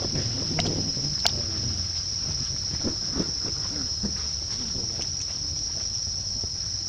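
Insects droning outdoors: one steady, high-pitched tone held without a break, with a single sharp click about a second in.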